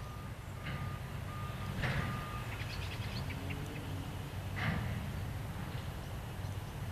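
A heavy machine's reversing alarm beeps steadily in a regular rhythm and stops about two and a half seconds in, over the constant low hum of a diesel engine. Two sharp metallic clanks sound, one about two seconds in and one near five seconds, with light rattling between them.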